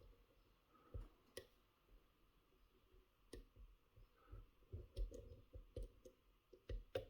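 Faint, irregular clicks and taps of a lock pick working the serrated pin-in-pin stacks of a Mul-T-Lock Interactive lock held in a deep false set. The clicks are sharpest about a second in, around three seconds and from five to seven seconds.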